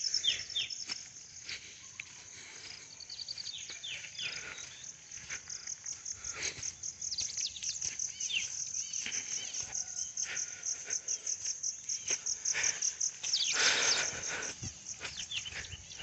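Insects trilling high and fast-pulsing, with short falling bird chirps scattered through it. A brief louder rush of rustling noise comes near the end.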